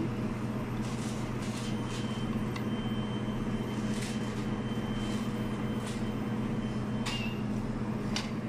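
Steady low machine hum with several light clicks and taps of metal parts as the nuts are fitted back onto a frozen beverage machine.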